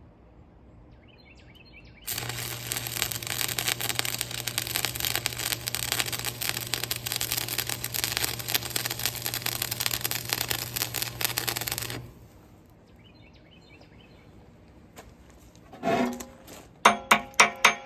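Electric arc welder laying a bead on a backhoe bucket: a steady crackling buzz with a hum beneath it, starting suddenly about two seconds in and cutting off about ten seconds later. A short knock comes after, and evenly repeating ringing tones begin near the end.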